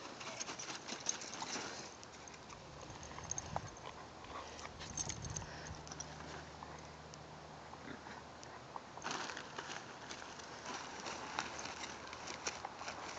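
Scottish terrier puppies scrambling in and around a fabric play tunnel: irregular rustling and small clicks, busier from about nine seconds in.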